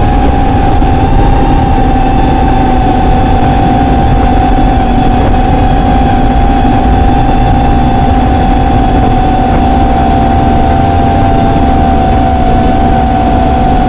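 Brushless motors of an Eachine Nano LR3 3-inch quadcopter whining at a steady pitch over a loud hiss as it flies slowly and descends. The pitch sags slightly in the second half.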